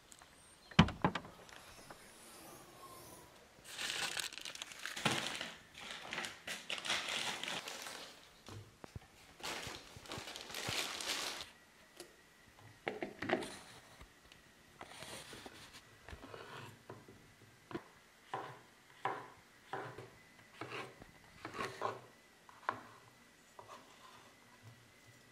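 A single sharp thump about a second in, then a spell of crinkling and rustling. After that comes a knife slicing a courgette on a wooden cutting board, one cut about every second.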